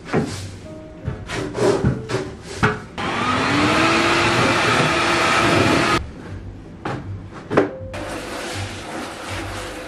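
A few knocks and clatters, then a stick vacuum cleaner runs for about three seconds. Its pitch rises as the motor spins up, then it cuts off suddenly, and a few more knocks follow.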